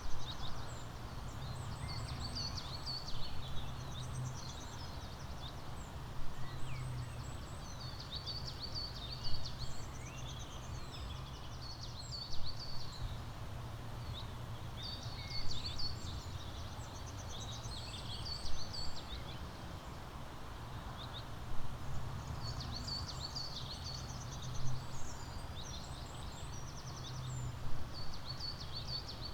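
Small songbirds chirping and twittering in short high bursts, a new burst about every three seconds, over a steady low background rumble.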